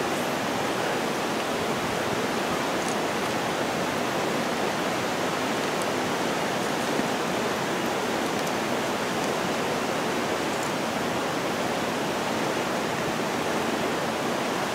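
Steady rush of water from a partly frozen waterfall, an even hiss with a few faint clicks.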